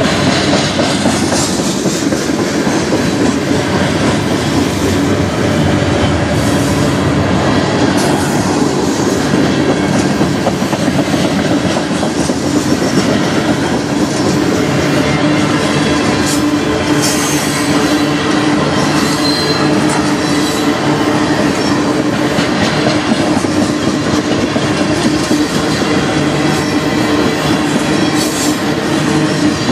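Freight cars of a manifest train, covered hoppers and tank cars, rolling past close by: a loud, steady rumble and clatter of steel wheels on the rails.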